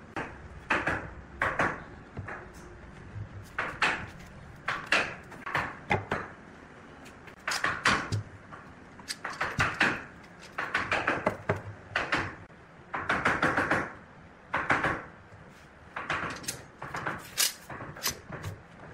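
Turning tool cutting into wood spinning on a wood lathe, in short irregular scraping strokes about once or twice a second, over a low steady hum.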